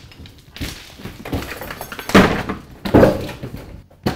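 A countertop with a built-in stainless steel sink being wrenched off its base cabinet: a series of heavy thuds and cracking, the loudest about two seconds in and another about a second later.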